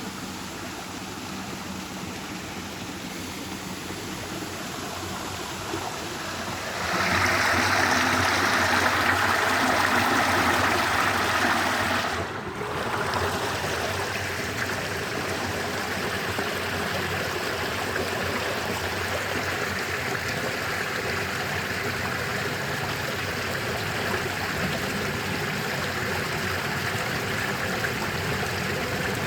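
Flowing stream water, a steady rushing. About seven seconds in it turns louder and brighter. After a short dip about twelve seconds in, it settles back to a steady rush.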